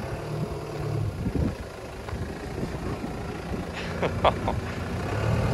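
Land Rover Defender's engine running at low revs as it crawls through a deep rut on large off-road tyres, with scattered knocks from the tyres and chassis on the dirt. A brief higher-pitched sound comes about four seconds in.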